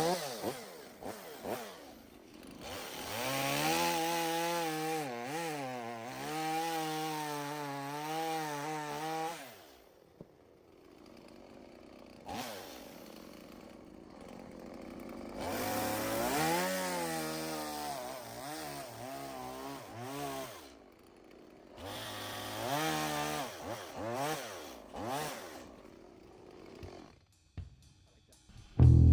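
Chainsaw running in three long bouts, its pitch wavering up and down as it is throttled and loaded while cutting wood, with quieter spells in between.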